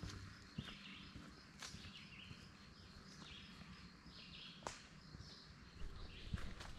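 Faint birds calling in repeated short phrases, with a few footsteps.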